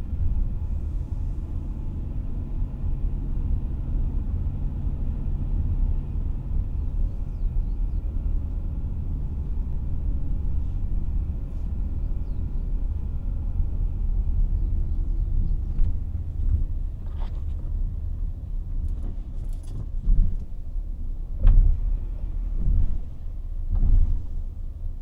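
A car driving at low speed, a steady low rumble of engine and tyres. In the last few seconds several heavy thumps and knocks come through, as from bumps in the road.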